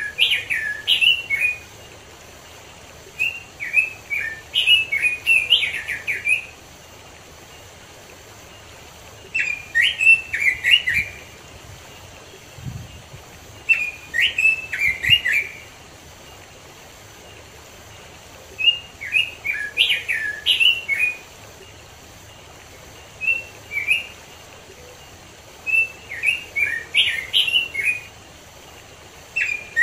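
Red-billed leiothrix (Pekin robin) singing. It gives short phrases of quick, warbling whistled notes, each a second or two long, repeated every four to five seconds with pauses between, over a low steady hiss.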